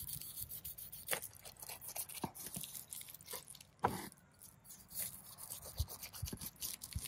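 Long slicing knife cutting the charred skin off a grilled pineapple on a wooden cutting board: irregular crunchy scrapes and crackles as the blade goes through the burnt rind, the sharpest about four seconds in.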